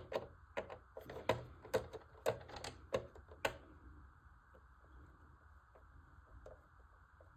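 Small screwdriver driving a self-tapping screw into the plastic model, with a run of sharp clicks about four a second that stops about three and a half seconds in.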